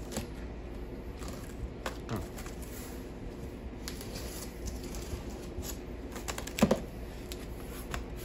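Utility knife slicing through packing tape on a cardboard box, with scattered scrapes and rustles of the cardboard as it is handled. A louder knock of the box comes about six and a half seconds in.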